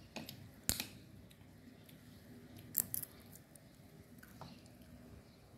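A person chewing a mouthful of rice noodles, with a few sharp clicks of chopsticks; the loudest clicks come just under a second in and near three seconds in.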